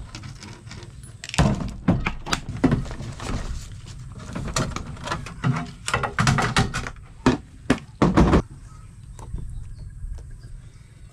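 Camping cookware and a portable gas canister stove being set down and shifted on a metal tabletop on a truck tailgate: a run of sharp knocks and clatter. Near the end, water runs from a jug's tap into a kettle.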